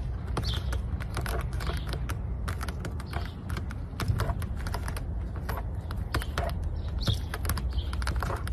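Cat clawing and gnawing at a car tyre: a rapid, irregular run of small clicks and scratches over a steady low rumble.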